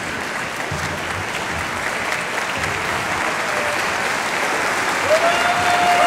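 Audience applauding, the clapping growing steadily louder; about five seconds in, a held tone comes in over it.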